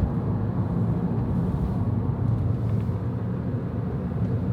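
Steady low rumble of road and engine noise from a moving car, heard from inside.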